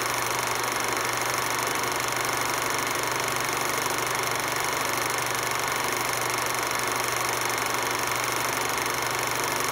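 A steady, unchanging hiss with a low hum underneath. There are no separate knocks, notes or voices.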